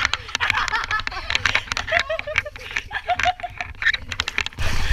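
A woman laughing in short repeated bursts, over scattered clicks and taps.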